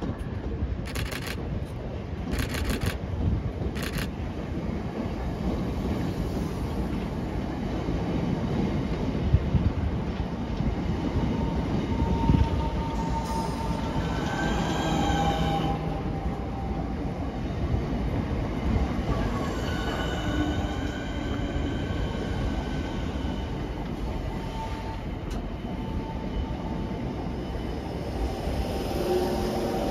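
Two coupled Southeastern Class 465 Networker electric multiple units arriving and running slowly along the platform, with a steady heavy rumble of wheels on the rails. There are a few sharp clicks in the first seconds and high-pitched squeals about halfway through and again a few seconds later.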